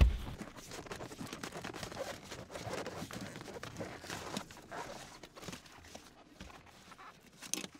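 A thump, then soft rustling and scattered small knocks as the leather rear seat cushion of a BMW E46 is worked loose and lifted out, with a short click near the end.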